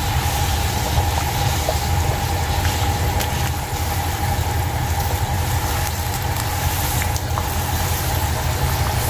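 A pot of salted water at a rolling boil with linguine in it: a steady bubbling rush over a low rumble, with a few faint clicks.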